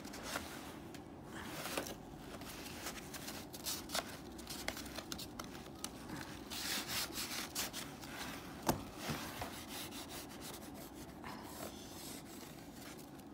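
Irregular rubbing and scraping, with scattered sharp clicks, the loudest a little under nine seconds in.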